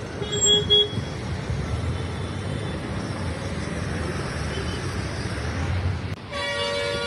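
Road traffic on a rain-wet road: a steady rush of tyres and engines, with a vehicle horn tooting twice in the first second.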